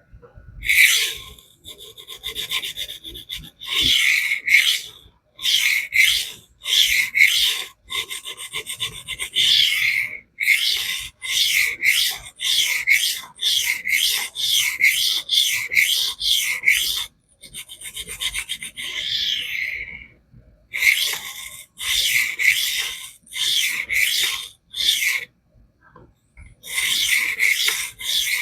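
Spyderco Polestar's CTS-BD1 stainless steel blade stroked freehand across a 1000-grit electroplated diamond sharpening plate, a rasping scrape with each pass. The passes come about two a second, with a few short pauses.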